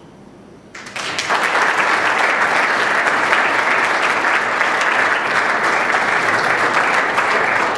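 Audience applauding: the clapping starts under a second in, quickly builds to full strength, and holds steady.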